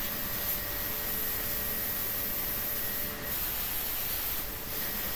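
Handheld plasma cutter cutting through a small steel strip: a steady hiss of the air-plasma arc, with a faint steady hum underneath and two brief dips in level.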